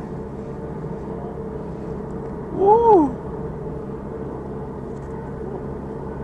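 Steady traffic drone from the toll-road bridge overhead. About halfway through, a short wordless call rises and falls in pitch once.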